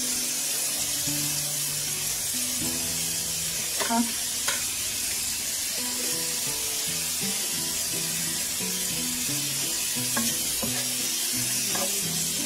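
Cucumber strips sizzling in hot oil in a frying pan as a wooden spatula stirs them, with a few short knocks of the spatula against the pan. Background music plays over it.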